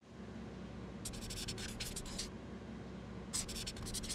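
A pen scratching across paper in two bursts of quick writing strokes, the first about a second in and the second near the end, over a faint low hum.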